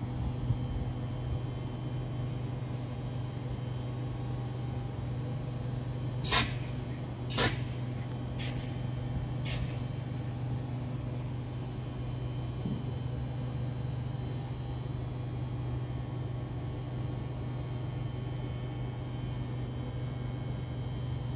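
Stationary Regio 2N electric train humming steadily while standing at the platform. A few seconds in come four short, sharp hisses of released air about a second apart.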